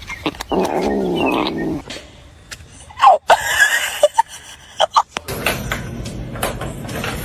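A pet animal's drawn-out, wavering call, lasting about a second, starting about half a second in. It is followed by scattered short sounds, then a steady rushing background from about five seconds in.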